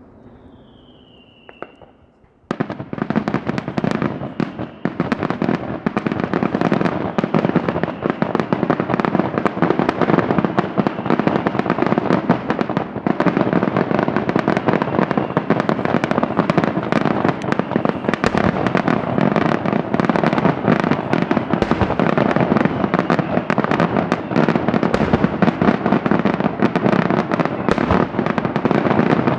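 Daylight fireworks display: a brief falling whistle, then from about two and a half seconds in a dense, unbroken barrage of rapid firecracker bangs and crackles.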